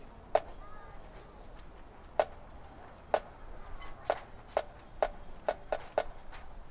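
A series of sharp single clicks, about one a second at first, quickening to about two a second near the end.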